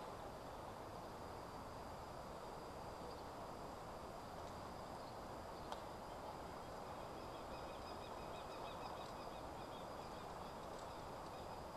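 Faint outdoor background ambience: an even hiss with thin, high, steady chirping tones that thicken into a faint trill after about seven seconds, and one small click about six seconds in.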